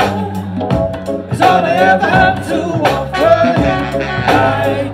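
Live hip hop/groove band playing: a drum beat and a bass line, with a melody line over the top.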